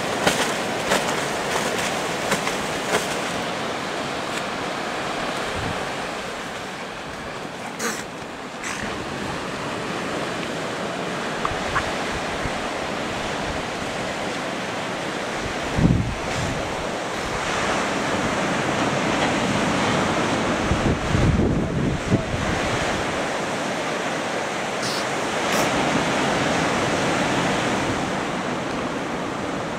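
Ocean surf washing steadily onto a sandy beach and rocks, with wind gusting on the microphone in a few low rumbles about halfway through and again a few seconds later.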